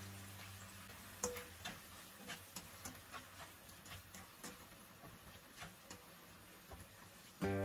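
Light, irregular clicks and taps of kitchen utensils, roughly two a second, the first with a short metallic ring; background music comes back in near the end.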